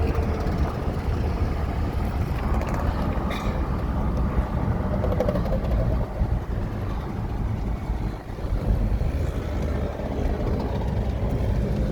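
Steady low vehicle rumble of engine and road noise, with no sudden events.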